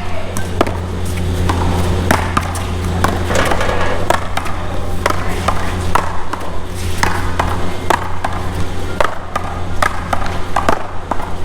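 A one-wall paddleball rally: sharp hits of paddles striking the ball and the ball smacking the wall, coming at an irregular pace over a steady low rumble.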